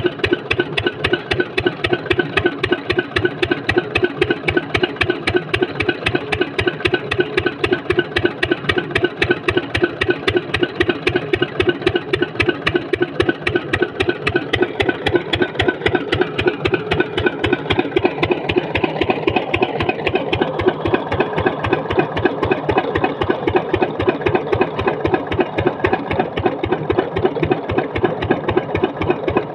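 Old 8 hp Lister-type single-cylinder diesel engine running steadily while driving a belt-driven water pump, with a fast, even beat of firing strokes.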